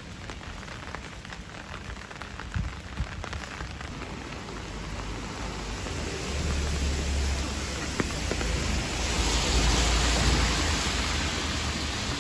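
Steady rain on a wet street, with scattered drops ticking close by. From about halfway, a low rumble and wet-tyre hiss build up as a box truck drives past on the wet road. They are loudest near the end.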